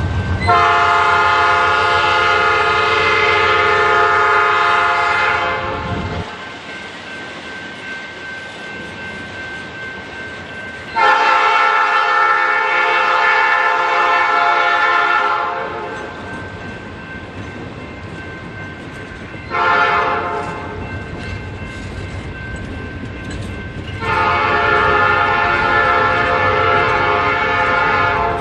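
Locomotive air horn sounding the grade-crossing pattern: two long blasts, a short one, then a long one. Beneath and between the blasts is the steady rumble of Triple Crown RoadRailer trailers rolling past on their rail bogies.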